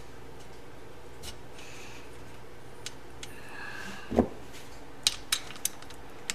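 Hand tools working small steel bolts on a motorcycle cylinder head: scattered sharp metal clicks and clinks, with one heavier knock about four seconds in and a cluster of clicks near the end. A faint steady hum sits underneath.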